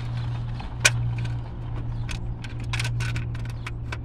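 Sharp plastic and metal clicks as a distributor cap is worked onto the distributor and its hold-down latches are handled: one loud click about a second in, then a run of smaller clicks around three seconds in, over a steady low hum.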